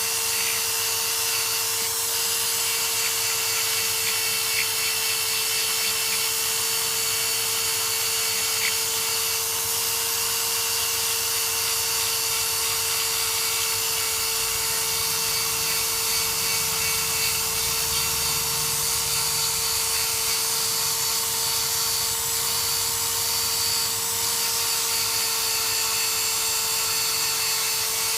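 A high-speed rotary power tool running steadily with a constant whine, buffing the inside of a tire around a puncture smooth to take the patch glue.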